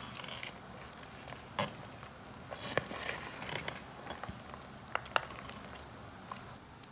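Hand mixing soft, sticky rice-flour dough in a metal pot, with faint wet mixing sounds and a few light clicks.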